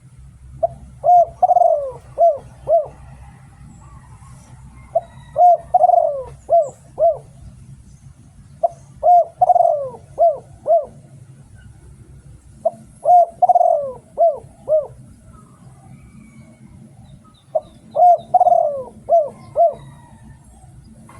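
Spotted dove cooing: five phrases of several short notes each, repeated about every four seconds.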